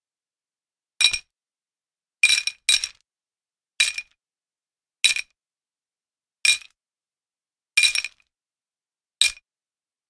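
A metal chain jingling in short, separate shakes, about eight of them with silence between, two close together about two and a half seconds in.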